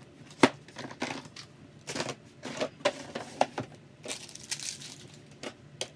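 Household objects being handled and put away: a quick jumble of clattering knocks and rustling, sped up, with a sharp knock about half a second in.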